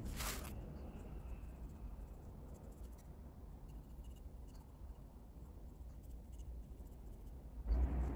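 Small paintbrush dabbing and scraping paint onto the rough rim of a cement flowerpot: faint scratchy strokes and ticks. A brief rustle at the start, and a low thump near the end.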